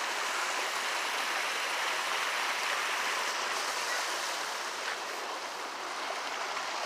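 Steady rushing of running water: an even hiss with no breaks, dipping slightly a little past the middle.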